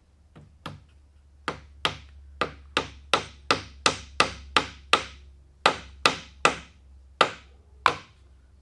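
Claw hammer driving a wooden wedge into a sawhorse's mortise-and-tenon joint to spread and lock the tenon. Two light taps, then about fifteen sharp strikes at roughly three a second, with a short pause partway through.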